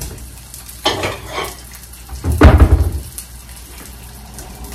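Dishes clattering as a plate is handled at a kitchen counter: a short clatter about a second in, then a louder burst of clattering around two and a half seconds in.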